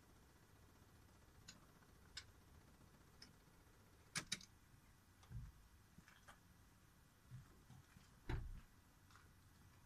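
Near silence with a few faint scattered clicks and soft low thumps; the loudest, a click with a thump, comes near the end.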